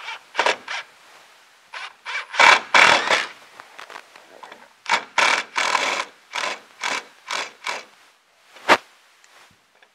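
Cordless drill driving long decking screws up into wooden ceiling framing in a series of short bursts, the screws creaking as they bite into the wood. A single sharp, loud click comes near the end.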